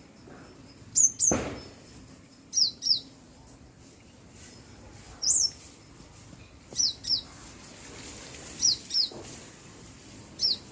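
A small bird chirping: short, high chirps that slide downward, mostly in quick pairs, repeated every couple of seconds. A low thump sounds about a second in.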